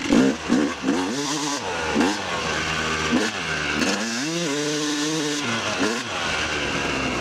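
250cc two-stroke dirt bike engine being ridden hard, its pitch climbing and falling several times as the throttle is worked, with one longer pull held for about a second and a half near the middle.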